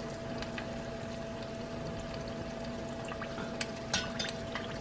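Battered corn dogs deep-frying in hot oil, about 350 degrees, in a stainless pot: a steady bubbling sizzle with faint scattered crackles.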